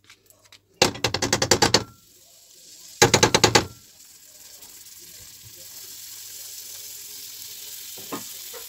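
Two short bursts of rapid scraping clicks as a spoon works butter out of a plastic tub into the pan. Then butter starts sizzling on the hot toasted flour in the non-stick pan, a hiss that grows steadily louder.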